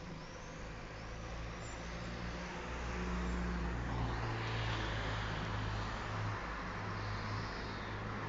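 A motor vehicle engine running, a steady low hum over street noise that grows louder about three seconds in. A few faint high chirps near the start.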